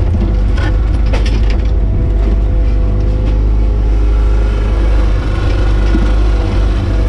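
JCB 802 mini excavator running steadily, heard from inside its cab, with the diesel engine's low rumble and a steady whine from the hydraulics as the arm works. A few sharp knocks about half a second and a second in.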